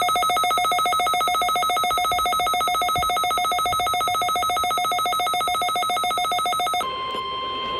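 Emergency Alert System attention signal: a loud, rapidly pulsing electronic alert tone that stops abruptly about seven seconds in. A steady single-pitch alert tone then takes over, the weather-radio warning tone that comes before a spoken tornado warning.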